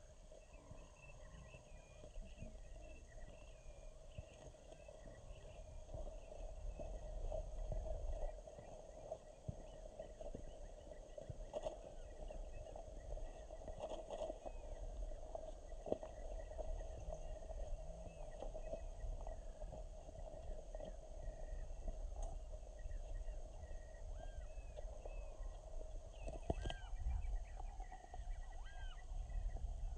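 Outdoor marsh ambience: many faint, high, quick chirps of distant birds calling, more distinct near the end, over a low rumble and a steady drone.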